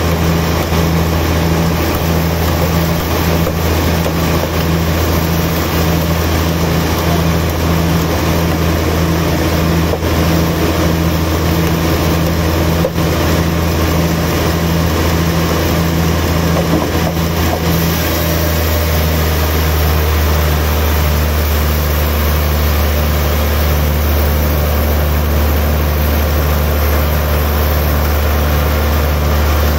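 Large band sawmill's machinery running without cutting: a steady low hum with a regular throb. A little past the middle the hum drops slightly in pitch and the throb slows.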